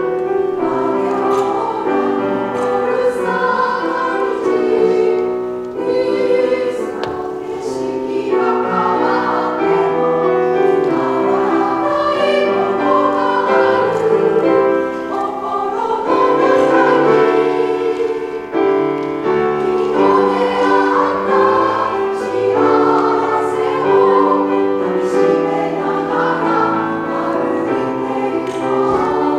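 Women's choir singing a slow Japanese song in several parts, with piano accompaniment.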